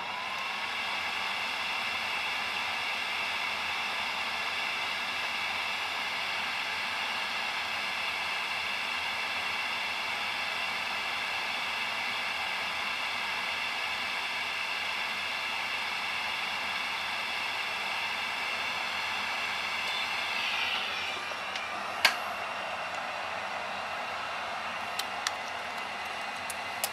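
Dental light-curing unit running through a curing cycle on flowable composite: its cooling fan makes a steady whining hum. About twenty seconds in the cycle ends and the whine drops in pitch, followed by a single sharp click.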